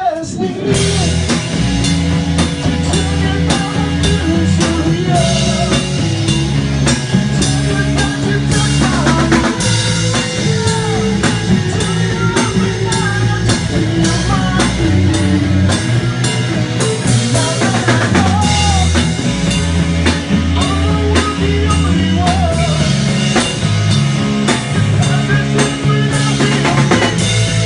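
Hard rock band playing live: a drum kit keeps a steady beat over held bass notes, with lead lines bending in pitch over the top.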